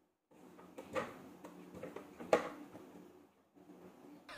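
Quiet kitchen handling noise as dough wrappers are pinched shut by hand, with two light clicks about one and two and a half seconds in.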